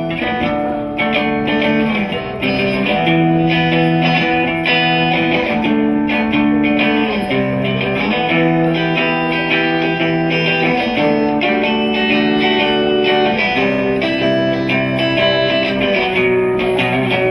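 Amplified electric guitar playing an instrumental piece: ringing chords and notes that change every second or two.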